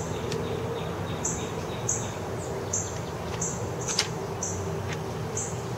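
A small bird chirping outdoors: short, high chirps repeated irregularly about once or twice a second over a steady background hum.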